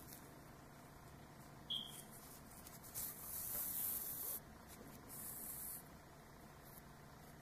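Grey yarn pulled through crocheted stitches with a sewing needle: two soft hissing pulls, one about three seconds in lasting over a second and a shorter one about five seconds in. A brief high squeak comes just before, a little under two seconds in.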